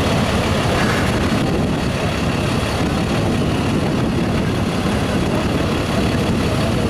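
Diesel engine of an NYPD barrier truck idling with a steady low rumble.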